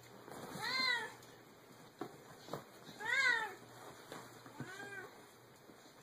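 A cat meowing three times, each call rising and then falling in pitch, the third one fainter. A couple of soft taps come between the first two meows.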